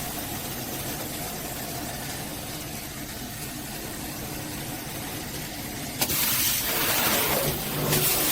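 Water running from a shower head with a low steady hum. About six seconds in there is a click, and the spray turns into a louder, fuller hiss.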